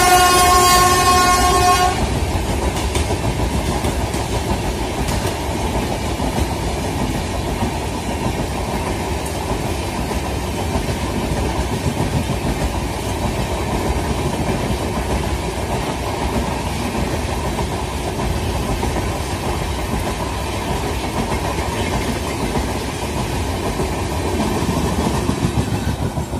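Train horn sounding one held chord, which cuts off about two seconds in, followed by a train running past with a steady rumble of wheels on the rails.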